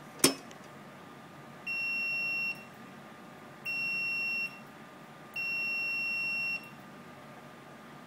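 One sharp click, then a multimeter's continuity beeper sounding three times, each a steady high-pitched beep of about a second, as the test probes touch the pins of a small push-button switch. The beep signals that the switch contacts are closed and conducting.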